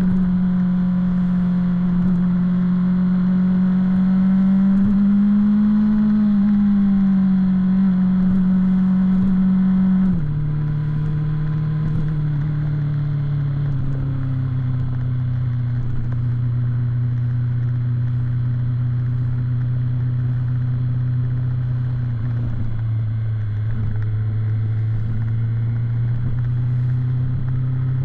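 BMW S1000 inline-four motorcycle engine under way at steady throttle. Its note rises slightly, drops suddenly about ten seconds in, then eases lower and steps down again later.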